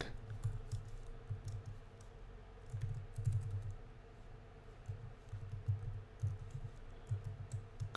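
Typing on a computer keyboard: irregular keystroke clicks with soft low thuds.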